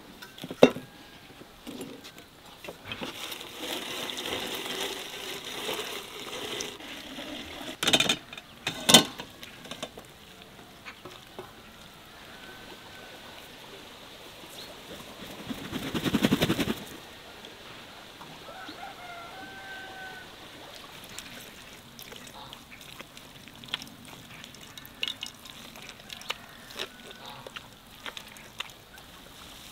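Farmyard sounds: faint bird calls and two sharp knocks about eight seconds in, then a farm bird's buzzy call lasting over a second that grows louder, about halfway through. Near the end come scattered small wet clicks and drips as chopped onion is squeezed in a wire sieve over a bowl.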